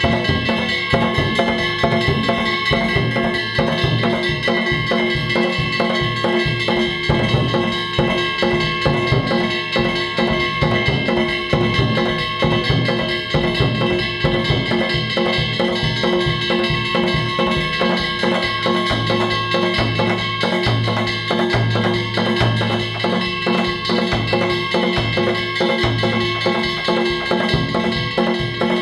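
Danjiri bayashi festival music: taiko drums beaten in a fast, unbroken rhythm over the continuous clang of small hand-held kane gongs.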